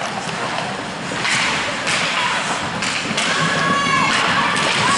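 Ice hockey play: sticks and puck knock sharply several times over the steady scrape of skates on ice. A voice calls out briefly about three and a half seconds in.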